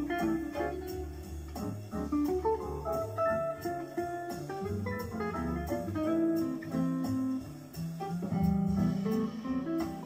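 Electric guitar playing a single-note jazz line over a backing of bass and drums, with an even high ticking beat throughout.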